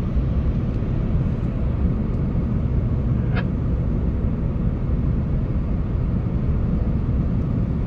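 Steady low rumble of a car heard from inside the cabin, with one brief high chirp about three and a half seconds in.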